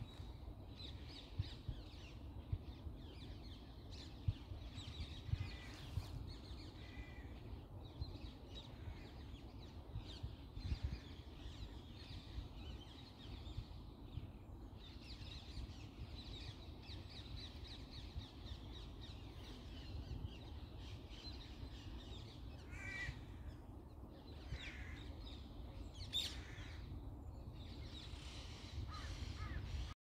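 Morning birdsong: many small bird calls throughout, with a few louder, harsher calls, two of them about three seconds apart near the end, over a steady low rumble.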